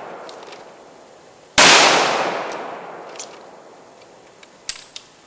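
A .357 Magnum handgun fires one shot about a second and a half in, its loud report dying away over the next couple of seconds. The tail of the previous shot is still fading at the start, and a couple of faint clicks come near the end.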